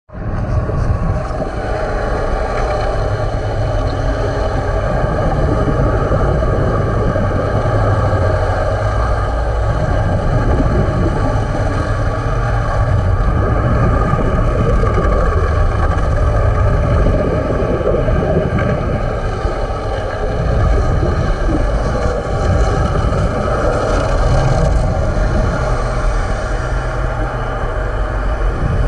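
Steady mechanical drone of machinery heard underwater during ship hull cleaning, with several constant tones over a low rumble that swells and eases every few seconds.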